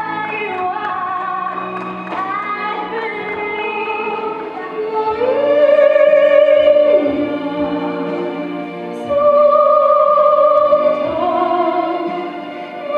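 A woman singing a slow song into a microphone, holding long notes, over a soft instrumental backing.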